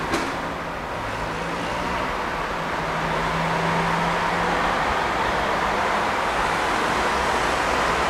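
Street traffic through an open window: cars and a scooter pulling away from a traffic light that has just turned green, engines accelerating over steady road noise. It gets louder a couple of seconds in.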